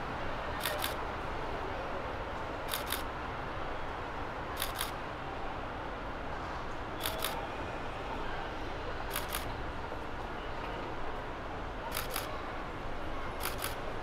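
Camera shutter firing seven times, roughly every two seconds, each shot a quick double click, over steady background noise.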